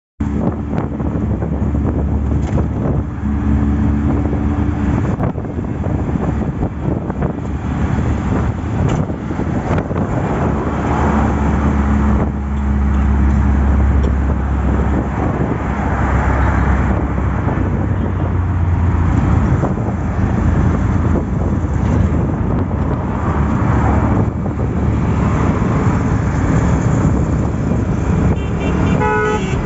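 Ride noise inside a moving auto-rickshaw with open sides: its small engine running steadily under road and traffic noise that swells and eases with speed. A short run of quick beeps sounds near the end.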